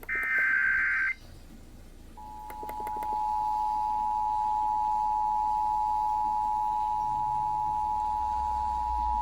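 Emergency Alert System signal over FM radio: about a second of harsh, high digital header tones, then, about two seconds in, the steady two-tone EAS attention signal swells up and holds. It is the alert that comes before a broadcast severe thunderstorm warning.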